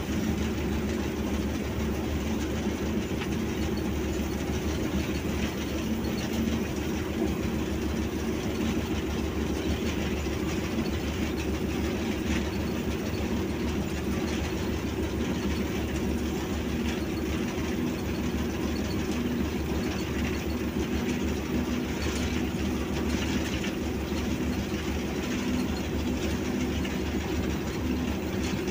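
A PHA-20 diesel locomotive running steadily along the line, heard from inside its cab: a constant engine drone with the rattle of the cab and wheels on the track.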